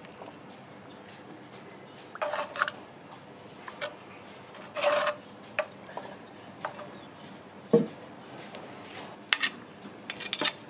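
Metal tongs scraping and knocking against a clay pot while a whole raw black chicken is shifted into place inside it: a scatter of short scrapes and clicks, one longer scrape near the middle and a sharp knock a little later, the loudest.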